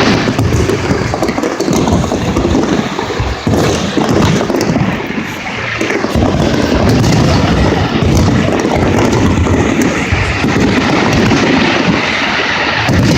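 Fireworks finale: a rapid, unbroken barrage of overlapping booms from aerial shells going off one after another, with a slight dip near the middle.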